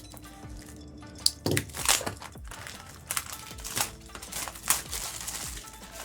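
Plastic packaging crinkling and crackling as it is handled, in several short bursts, the loudest about one and a half seconds in, over faint background music.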